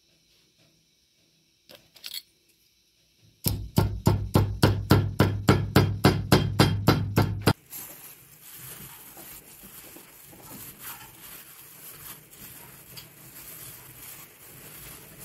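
A carpet weaver's beating comb knocking the weft down on a hand loom: a fast, even run of loud knocks, about four a second for some four seconds, cut off abruptly. Then the softer squelching and clicking of a gloved hand kneading a minced-meat meatball mixture in a glass bowl.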